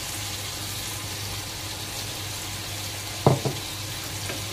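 Masala frying in a kadhai, sizzling steadily as thick ground spinach puree is poured in from a steel bowl, with one sharp knock a little past three seconds in.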